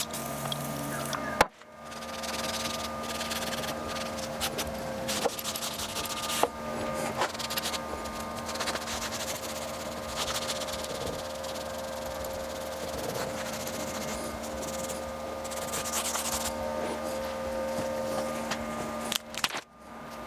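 Steady hand rubbing and scrubbing on metal parts, with a few short knocks and a faint steady hum underneath.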